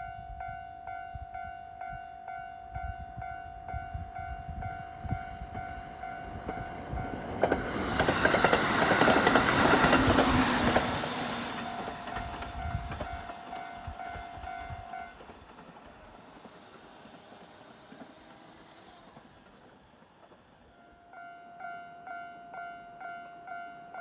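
Japanese level-crossing alarm ringing in a steady repeating ding while a JR 701 series electric train runs through the crossing, its wheels clacking over the rail joints and loudest about a third of the way in. The alarm stops just past halfway and starts ringing again near the end.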